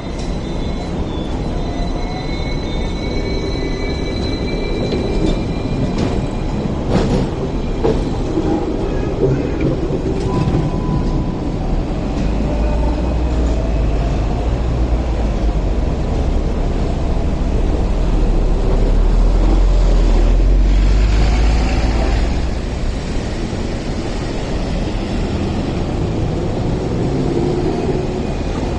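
Hong Kong double-decker electric tram running on street rails through a terminus loop: steel wheels with a faint high squeal on the curve early on and a few clicks over the track joints. Street traffic runs throughout, with a deep rumble swelling midway as the loudest sound.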